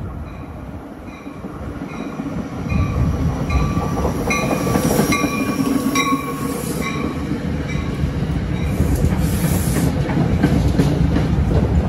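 NJ Transit Multilevel commuter train pulling into the station, its bell ringing about twice a second as it approaches. The rumble of its wheels grows louder as the cars pass close by, and the bell stops about two-thirds of the way through.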